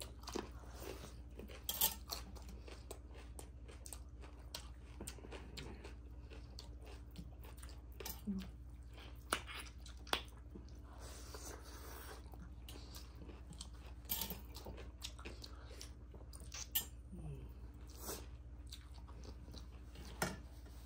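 Close-up chewing of food eaten by hand, with scattered short crunchy clicks and fingers scraping against metal plates.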